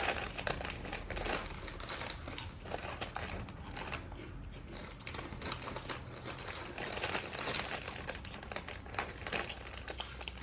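Irregular crackling and crunching of crunchy Hot Fries corn snacks being eaten, with their bag crinkling.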